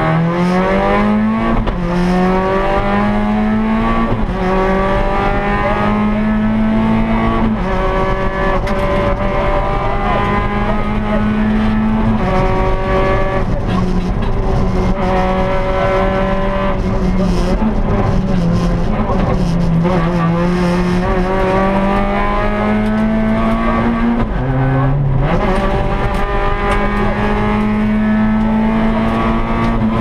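Rally car's engine heard from inside the cockpit under hard acceleration. The revs climb steadily, then drop sharply at each gear change or lift, several times over, at full stage pace.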